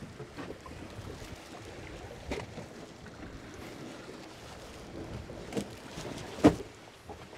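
Water slapping and wind around a small boat rocking in chop, with scattered light knocks and one loud thump near the end.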